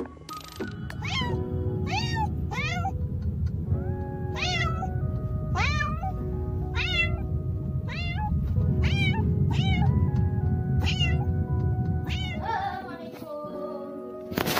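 A cat meowing over and over, about once a second, each meow rising and then falling in pitch, over background music.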